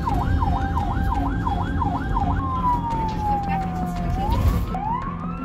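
Ambulance siren heard from inside the vehicle: a rapid warble of about three cycles a second, changing a little past halfway to a slow wail that falls, then climbs and holds high near the end. Under it runs the low rumble of the moving ambulance.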